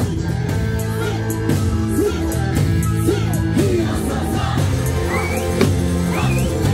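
Okinawan eisa music with singing, punctuated by unison strikes on barrel drums and paranku hand drums.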